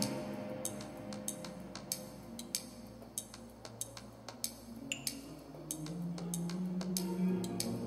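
Quiet passage of background music: sparse, irregular clicking percussion over soft held low tones, with a low held note coming in about six seconds in.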